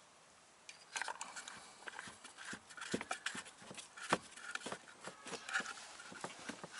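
Irregular plastic clicks and knocks, starting about a second in, as the engine-oil dipstick is pushed back into its filler neck and turned home, the hand bumping the plastic side panels.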